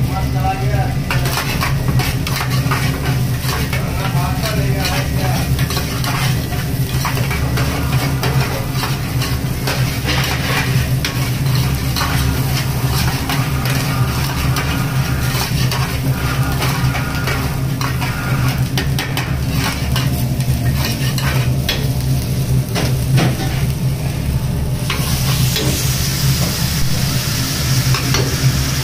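Oil sizzling in a black iron frying pan as chopped green vegetables fry, with a steel ladle scraping and clinking against the pan as they are stirred, over a steady low hum. Near the end the sizzle turns brighter and hissier as red masala paste goes into the hot oil.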